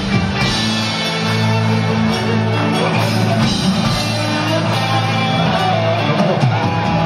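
Live rock band playing an instrumental passage, loud and steady: electric guitars, bass and drums through the PA, heard from the audience.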